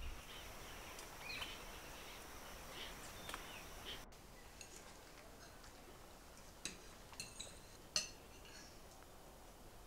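Faint room tone with soft rustling, dropping to near silence about four seconds in; then a few light clinks of cutlery against plates and glasses at a meal, the sharpest about eight seconds in.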